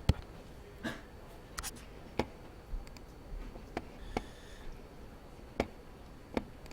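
Scattered light clicks and taps, about ten at irregular spacing, with a short faint scratch about four seconds in.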